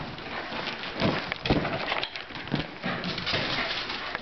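A Pembroke Welsh Corgi's claws clicking and scrabbling irregularly on a tile floor and rug as it chases balloons, with a few louder knocks.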